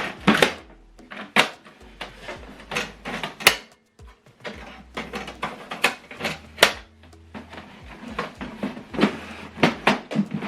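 Irregular plastic clicks and knocks from an HP DeskJet 4220e printer's covers and trays being handled and opened.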